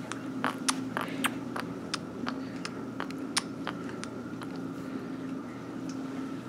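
Baby sucking on a pacifier: irregular wet clicks, several in the first few seconds and sparser toward the end, over a steady low hum.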